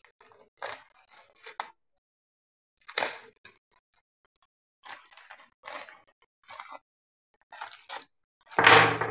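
Paper and plastic packaging being unwrapped by hand: irregular crinkling rustles as a wrapper is unfolded and a small plastic bag is pulled out, with the loudest rustle just before the end.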